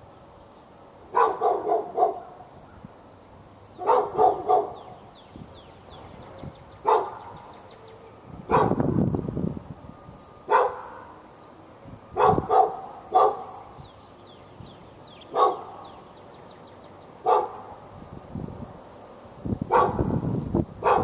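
A dog barking over and over behind a wooden fence, the barks coming singly or in quick runs of two to four, every two or three seconds.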